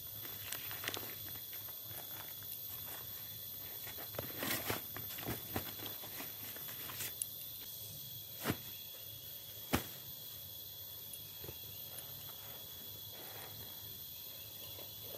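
Scattered light clicks and rustles of someone moving about a forest campsite, with a cluster of sharper knocks mid-way and two single sharp knocks in the second half, over a steady high buzz of insects.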